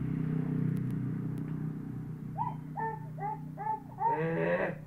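An animal calling: four short rising-and-falling calls about two and a half seconds in, then a longer, louder wavering call near the end, over a steady low hum.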